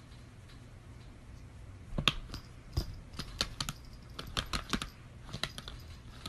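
Rapid, irregular clicking and tapping on a laptop, beginning about two seconds in, with a few loud clicks among softer ones.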